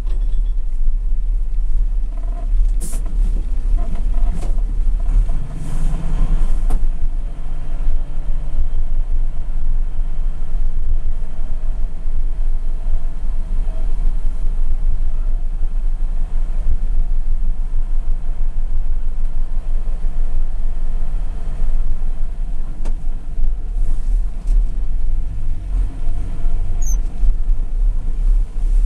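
Mercedes-Benz Unimog's diesel engine and drivetrain rumbling steadily inside the cab as the truck drives slowly over rough ground, with a few knocks and rattles about 3, 6 and 24 seconds in.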